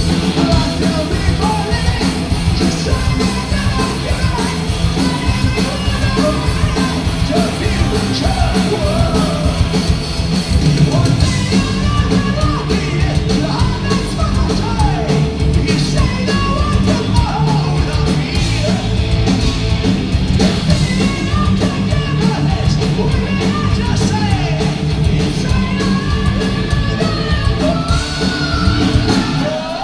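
Live heavy metal band playing at full volume: a male lead singer over distorted electric guitars, bass and drums, with high yelled vocal lines.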